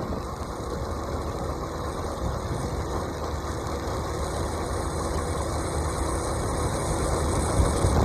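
A vehicle's engine running steadily with a low, even rumble.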